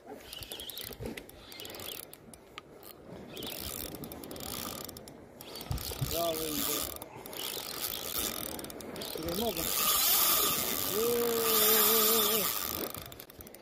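Penn Spinfisher VI 5500 spinning reel being cranked on a jigging retrieve, its gears whirring and clicking, louder near the end. A short wavering pitched sound comes about six seconds in, and a longer one near the end.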